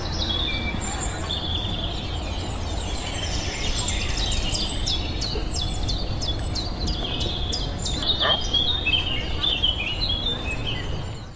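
Recorded birdsong: small birds chirping and twittering together in quick, high, downward-sweeping chirps over a steady low background hum. The recording cuts off suddenly at the end.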